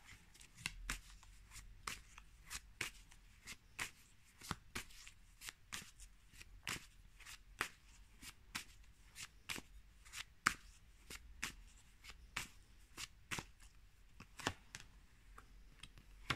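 A tarot deck being shuffled by hand: short, faint card slaps in a steady rhythm of about two a second.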